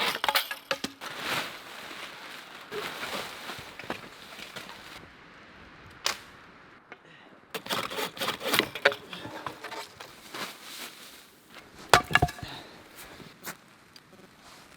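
Wood being chopped and broken: irregular sharp knocks and cracks with rustling between, the loudest strikes about six and twelve seconds in.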